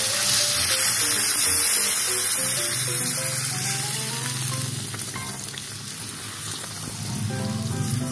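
Cold water poured into a hot wok of pan-fried milkfish and sautéed miso, sizzling hard at first and then dying down over the next few seconds as the broth takes the heat.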